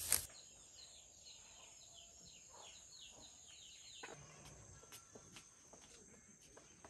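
Faint rural ambience: a bird repeating short downward-slurred chirps, three or four a second, over a steady high insect whine. About four seconds in the sound changes to a similar steady insect tone with scattered soft clicks.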